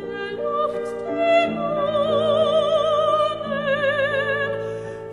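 Background music in an operatic style: a melody with wide vibrato on long held notes over sustained low accompaniment.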